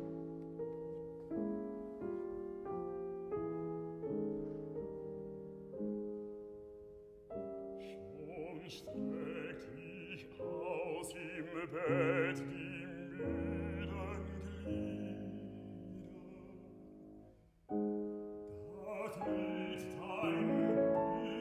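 Grand piano playing a slow introduction of evenly spaced chords. About seven seconds in, a baritone voice enters, singing a classical art song with vibrato over the piano. It breaks off briefly near the end and then continues.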